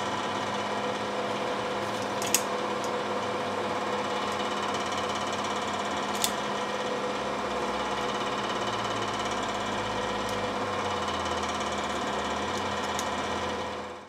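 Steady mechanical hum of the space heaters running in the garage, with a few sharp metallic clicks from vise-grip locking pliers being clamped onto the engine crankshaft's counterweights.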